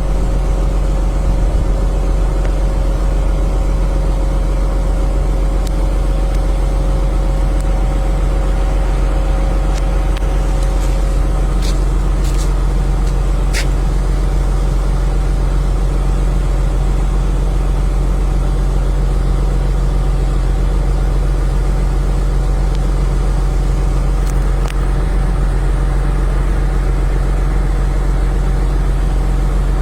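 Vehicle engine running steadily with a low, even rumble, and a few short clicks about twelve seconds in.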